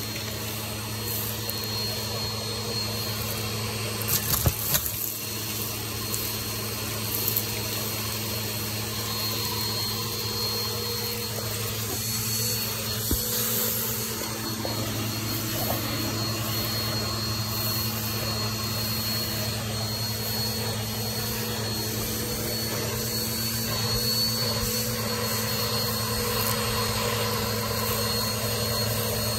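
Vacuum cleaner running steadily, its hose end sucking sequins, confetti and bottle caps off a carpet: a constant motor hum with a thin high whine over it. A few sharp clatters come about four and seven seconds in as pieces are pulled up the hose.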